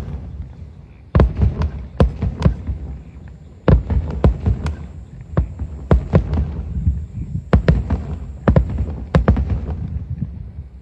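Aerial firework shells bursting in a rapid barrage, about two sharp booms a second over a continuous low rumble. There is a brief pause about a second in before the barrage resumes.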